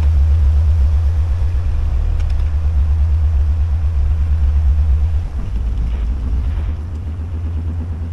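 A narrowboat's engine running under way, a steady low throbbing rumble that eases a little about five seconds in.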